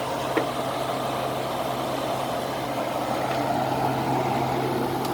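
Whirlpool window air conditioner running on high cool: the blower fan rushing steadily over the low, even hum of the compressor, which is pretty quiet. A light click about half a second in.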